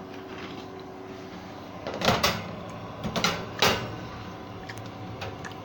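A metal baking tray knocking and scraping against an oven's wire rack as it is slid in. There is a cluster of clatters about two seconds in, then two more knocks between three and four seconds.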